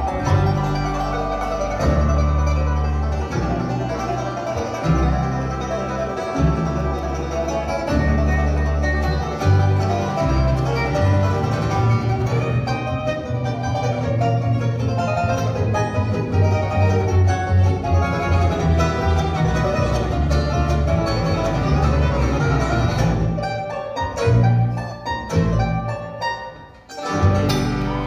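Live bluegrass band of banjos, fiddle, mandolin and upright bass playing a tune together. Near the end the music breaks into short, separated hits with gaps between them as the tune ends.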